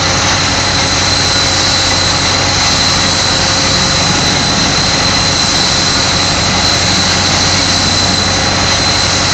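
Spray-injection pothole patching machine running steadily, its blower driving a jet of chippings and binder out through the boom nozzle, with a steady high whine over a low hum.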